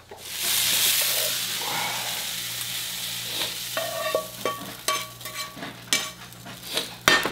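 Beef frying in a pan: a steady sizzle that starts suddenly and slowly dies down, with clicks and scrapes of a spatula stirring it in the second half.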